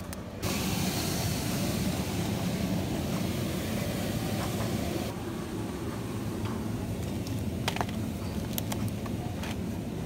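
Supermarket background noise: a steady hiss over a low rumble that starts suddenly about half a second in and eases after about five seconds, with a few light clicks near the end.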